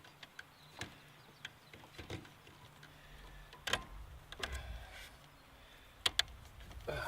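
Scattered clicks and knocks of a Fiamma bike rack's clamps and straps being closed and tightened on a mounted bicycle, with two sharp clicks in quick succession near the end. A low rumble comes in about halfway through.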